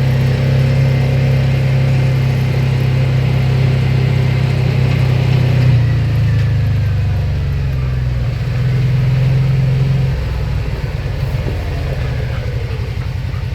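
A vehicle's engine running steadily close by, its note shifting about six seconds in and again about ten seconds in.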